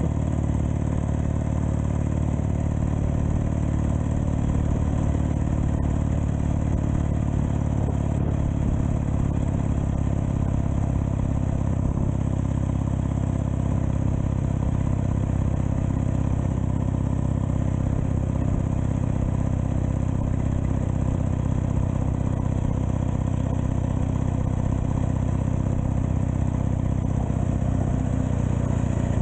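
1920 flat-tank Douglas motorcycle's flat-twin engine running steadily, with an even, unbroken note.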